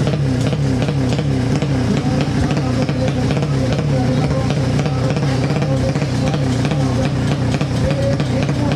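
Horizontal-cylinder four-stroke underbone drag-bike engine of up to 200 cc, held at the start line and revved in quick repeated throttle blips, a few a second.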